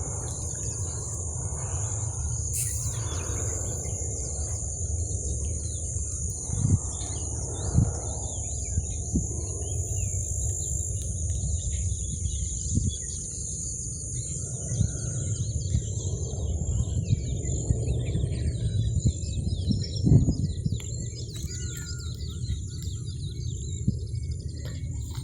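Small birds chirping here and there over a steady high insect drone, with a constant low rumble underneath and a few soft knocks.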